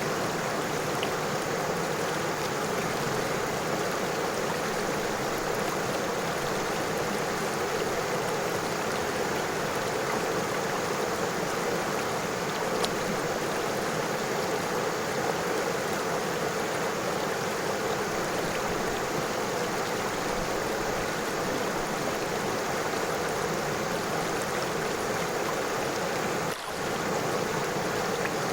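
River water flowing over stones, a steady rushing babble, with a momentary drop in level near the end.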